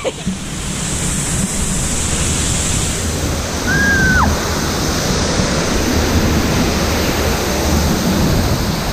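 Steady rushing and splashing water of a rapids raft ride. A brief high squeal cuts through about four seconds in.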